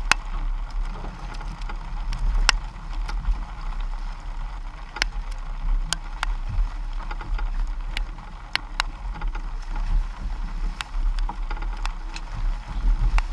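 Steady low rumble of wind and water around a boat on open sea, with about ten sharp clicks scattered at uneven intervals.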